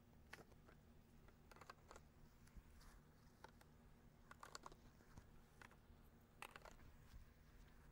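Faint, scattered clicks and light knocks of plastic stacking stakes and brackets being handled at the corner joints of a composite raised garden bed frame, with a quick cluster of clicks about halfway through.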